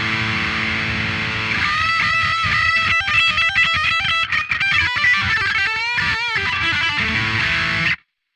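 Baum Backwing electric guitar playing. A chord rings out, then a single-note lead line follows with bends and vibrato, and a final chord stops abruptly near the end.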